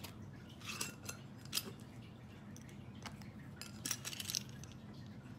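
A few light clicks and clinks of spice containers being handled on a table: a scatter about a second in, one at about three seconds, and a few around four seconds.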